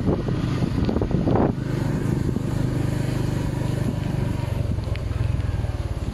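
Motorcycle engine running while riding, with wind buffeting the microphone for the first second and a half. After that the engine note comes through steady, dropping slightly in pitch and turning into a plain pulsing near the end as the bike slows.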